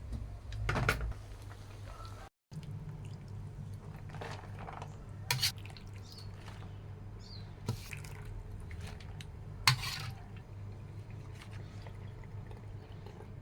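Kitchen sounds while cooking: scattered clinks and knocks of pots, dishes and utensils, with some liquid sounds, over a steady low hum. The audio cuts out for an instant about two seconds in.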